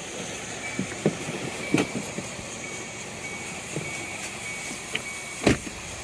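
Brent 882 grain cart unloading corn through its auger into a semi's grain trailer, with the John Deere 8430 tractor running. It is a steady rush of machinery and pouring grain, with scattered short knocks and one sharp knock about five and a half seconds in.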